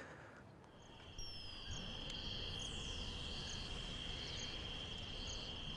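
A steady high-pitched insect-like trill, such as a cricket, that starts about a second in over faint outdoor background noise.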